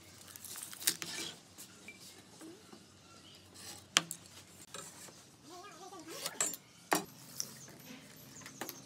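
Tape measure and pencil being worked on a wooden board on a wooden bench: sharp clicks and knocks of the tape against the wood, the loudest about one, four and seven seconds in, with light scratching and rubbing between. A brief pitched call in the background about six seconds in.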